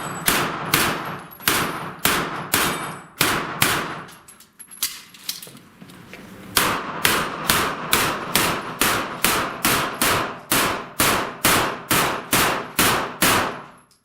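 Rapid gunshots at steel plate targets: a string of about eight shots, a pause of about two seconds, then a faster, even string of about twenty shots, roughly three a second, with the steel targets clanging.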